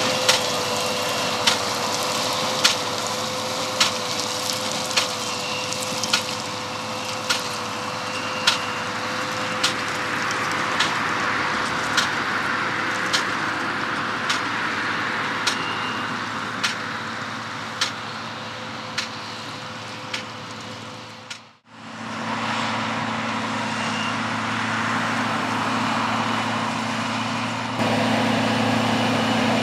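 Farm harvest machinery running steadily, with a sharp knock about once a second over a constant hum. After a sudden cut about two-thirds of the way in, a steady engine runs and gets louder near the end.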